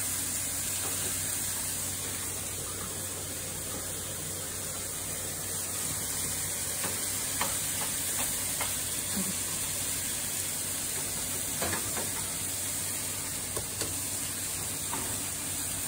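Turkey sizzling as it browns in a frying pan, with a few light scrapes and taps of a spatula stirring it.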